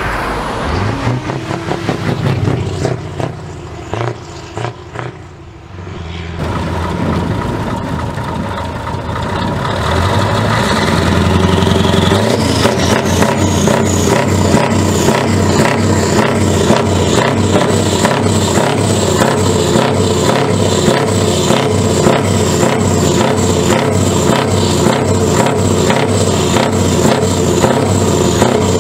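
A Scania 143 truck's 14-litre V8 diesel, first a truck approaching on a road, then, after about six seconds, a stationary tractor unit revved up and held at high revs. As the revs climb a high whine rises and then holds steady over the engine's rapid pulsing.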